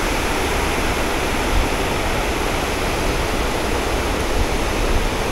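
Creek water running steadily: an even, unbroken rushing noise.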